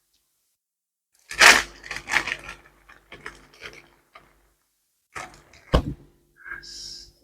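Close-miked eating of crunchy food: crisp bites and crackly chewing in short bursts, with sharp crunches about a second and a half in and again near six seconds.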